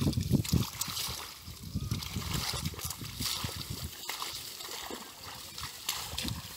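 Irregular splashing and sloshing of shallow muddy water as people wade and grope with their hands through dense water plants, loudest in the first second.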